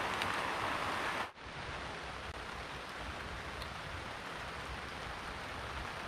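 Steady rain falling on a tarp shelter, an even hiss and patter. A little over a second in the sound cuts off abruptly and gives way to a quieter, duller rain hiss.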